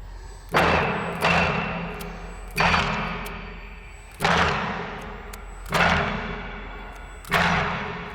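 A slow pulse of heavy percussive hits, about six in all and roughly a second and a half apart. Each strikes suddenly with a low pitched body and trails off in a long, fading hiss.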